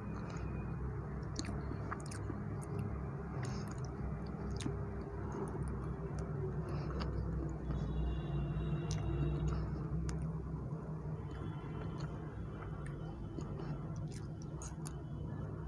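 Close-miked chewing of soft black forest cake with whipped cream: wet, squishy mouth sounds with scattered small clicks.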